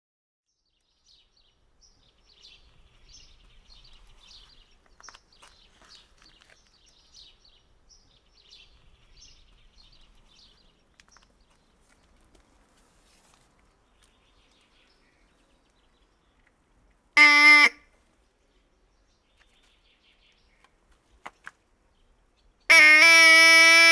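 Faint bird chirps, then a loud honk blown on a wooden duck-shaped call held in the mouth: one short blast about two-thirds of the way through and a long, steady, even-pitched blast near the end.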